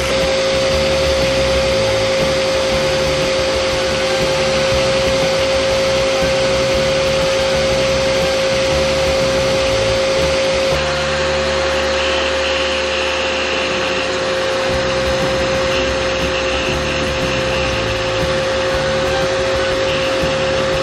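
Power tool spinning a polishing disc with a steady whine and hiss as a metal handle is pressed against it and polished. The sound changes about eleven seconds in, when a different disc is in use.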